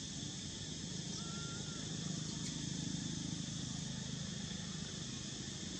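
Steady high-pitched drone of an insect chorus over a low rumble, with one faint short chirp about a second in.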